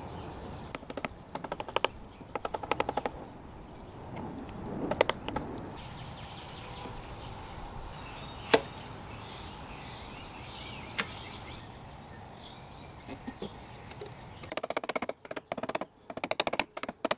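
Bursts of rapid clicking and single sharp knocks as a wooden high chair is clamped, then a run of quick knocks near the end as a rubber mallet taps the glued wooden footrest into its joints.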